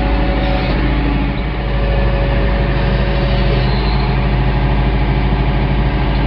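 Tractor engine running steadily at a high, even speed while the tractor pushes a bush hog along on a pallet.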